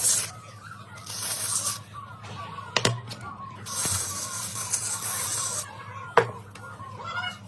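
Hissing bursts of an aerosol spray, one short and one about two seconds long, with two sharp clicks between them.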